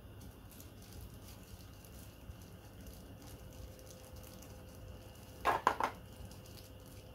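Faint handling noises with small ticks and rustles, and a quick cluster of three clacks about five and a half seconds in.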